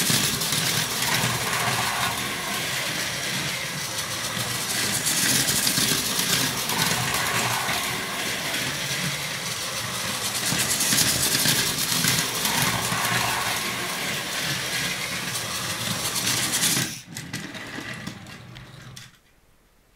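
Plarail battery-powered toy train (201-series commuter model) running on plastic track: a whirring toy motor and gearbox with wheels rattling over the track joints, growing louder each time the train passes close, about every five to six seconds. The sound drops off sharply near the end and fades to near silence.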